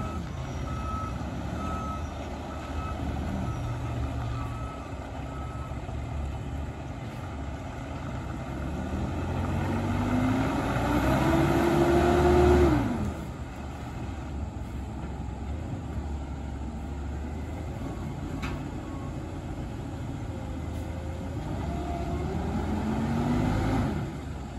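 Dennis Elite 6 side-loader garbage truck: its reversing alarm beeps steadily and stops about five seconds in. Then the diesel engine revs up as the truck pulls forward, loudest around the middle before dropping off suddenly, and revs up again near the end.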